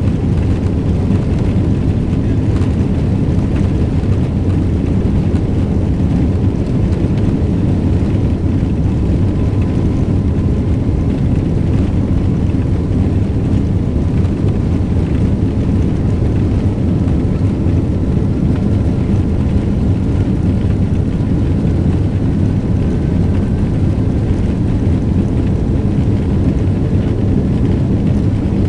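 Boeing 777-200ER jet engines and rolling rumble heard inside the rear economy cabin as the airliner turns onto the runway and starts its takeoff roll: a steady, loud, low roar, with a faint whine slowly rising in pitch in the second half.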